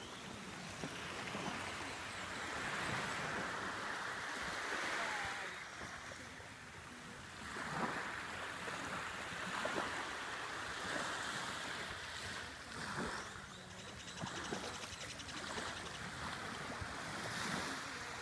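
Surf washing on a beach, mixed with wind, swelling and easing every few seconds.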